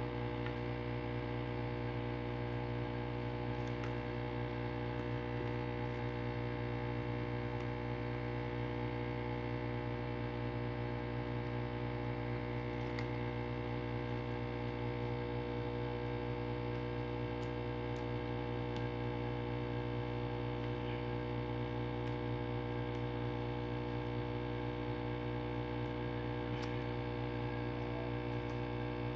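Steady electrical hum with many overtones, unchanging throughout, with a few faint small clicks from handling the parts.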